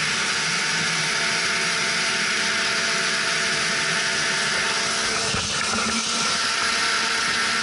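Snowmobile running steadily at speed across lake ice: an even engine drone under a constant rushing noise.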